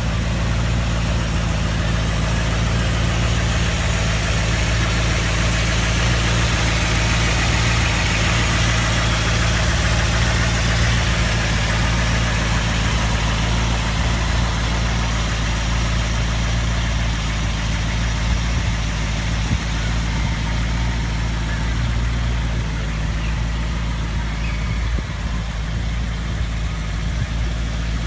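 A 1955 Pontiac Chieftain's 327 V8, with a four-barrel carburettor and Flowmaster dual exhaust, idling steadily.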